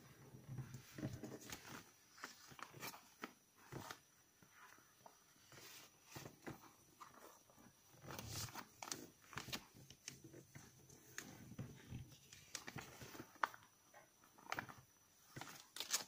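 A square sheet of origami paper being folded by hand: faint, irregular rustling and crinkling of the paper, with sharper crackles as folds are pressed down.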